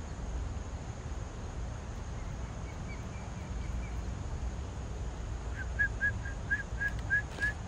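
Osprey calling: a series of short, rising whistled chirps, about three a second. A faint run comes a few seconds in and a louder run near the end, over a low steady rumble.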